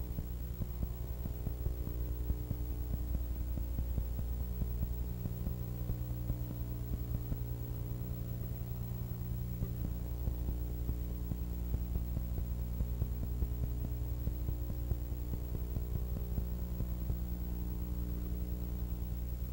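Steady electrical mains hum with a buzzing stack of overtones, unchanging and with nothing else over it: the noise floor of a film transfer with no sound of its own.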